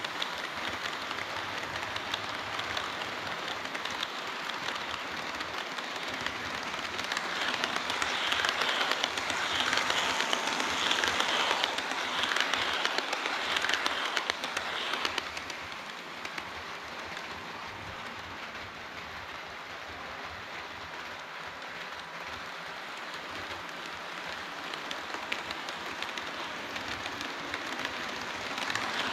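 HO scale model train running on the layout track: a steady rolling rush dotted with fine, rapid clicking. It grows louder for several seconds, then falls back to a softer, even run.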